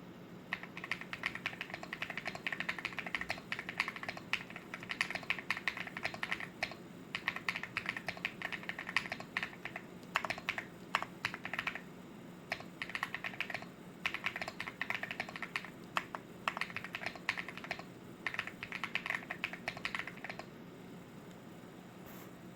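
Typing on a stock, unmodded Leobog Hi75 mechanical keyboard with KTT Kang White linear switches and GMK BOW replica keycaps: rapid keystroke clacks in bursts with short pauses. The typing stops about two seconds before the end.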